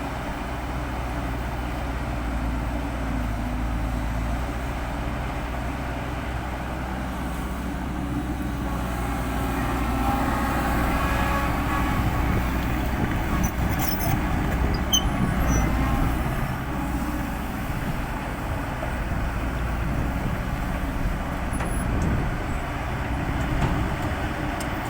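Heavy diesel earthmoving machinery running steadily, getting somewhat louder around the middle as it works, with a few light clicks.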